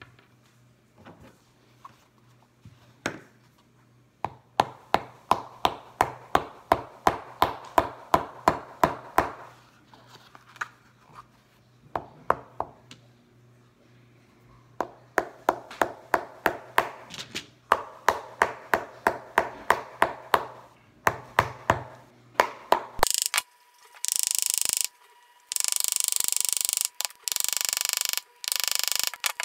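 A small hammer tapping a plastic replacement heel tip's pin into a high heel shoe, in quick runs of strikes about three a second with pauses between. Near the end come several long, harsh scraping strokes.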